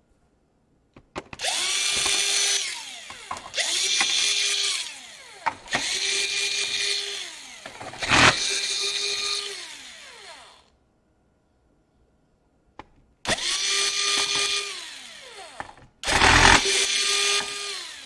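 A cordless drill-driver turning small screws in a laptop's metal frame. It runs in six short bursts of a steady whine, the pitch falling away at the end of each, with a pause of about two seconds after the fourth.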